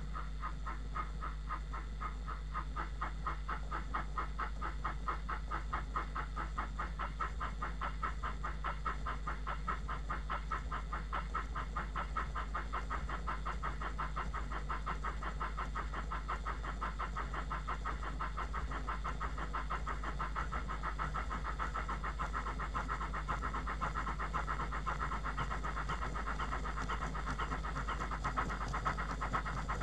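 Model Ivatt 2MT steam locomotive's DCC sound decoder playing recorded steam exhaust beats through its small speaker as the model runs on a rolling road: a steady, fast, even chuffing rhythm that grows slightly louder near the end.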